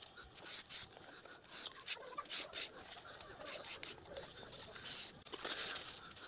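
Faint rubbing and light clicks of a solvent-dampened cloth wiping down a strip and an aluminium clutch cone: parts being degreased before gluing. A slightly louder swish comes about five seconds in.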